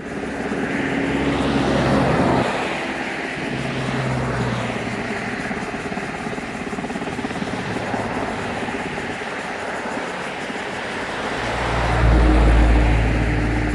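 Helicopter flying nearby: a continuous engine and rotor hum that swells into a heavy low rumble near the end.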